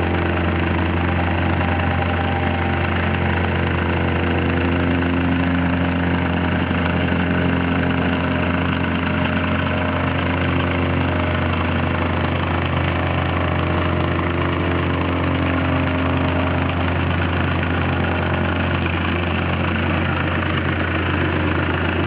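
Engine-driven vibratory plate compactor running on gravel: a loud, steady engine hum with a fast, even pulsing from the vibrating plate.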